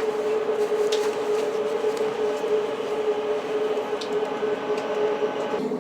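Train carriage heard from inside: a steady, unchanging mid-pitched hum over running noise, with a few faint clicks.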